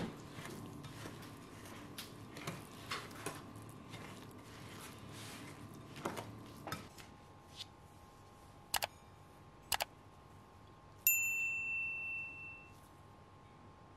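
Wooden spatula stirring and scraping a thick oat-flake batter in a glass bowl, with soft irregular scrapes and clicks. Stirring stops about seven seconds in, followed by two sharp clicks and then a single bright ringing ding about eleven seconds in that fades out over a second or so.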